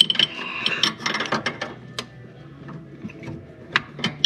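Hand wrench working the fitting of a power steering pressure hose a fraction of a turn at a time: a run of irregular sharp metal clicks and ratcheting.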